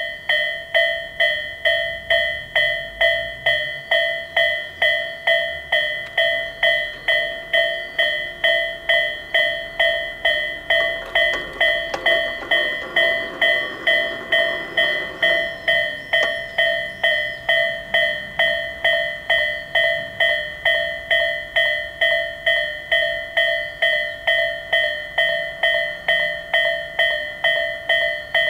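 Japanese electronic railway crossing bell (the Tobu Railway type-A tone) starting up and dinging steadily about twice a second as the crossing warns. A train rumbles past over the rails, with a run of clicks, from about eleven to sixteen seconds in, while the bell keeps ringing.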